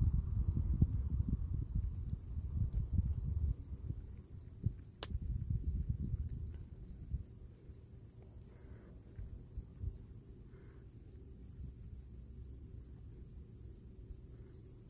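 Insect chirping steadily, a high pulsing trill repeating about five times a second, under low rumbling noise that dies down after about seven seconds. A single sharp click about five seconds in.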